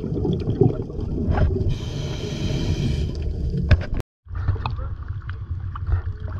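Muffled underwater rumble from a diver's camera, with a scuba regulator breath hissing for about a second and a half near the middle. After a short dropout about four seconds in, water splashing at the surface with a low steady hum from the dive boat.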